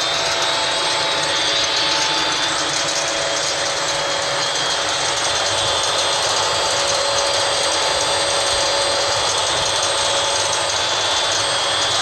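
Welding-shop exhaust ventilation fan running steadily: an even, dense rushing noise with a few faint steady tones in it.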